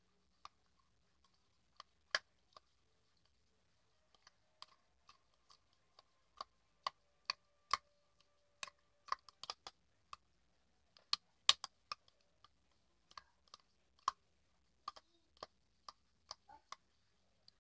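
Mouth sounds of someone eating agar jelly close to the microphone: a long string of sharp clicks and smacks, one or two a second with no steady rhythm, pausing briefly about three seconds in.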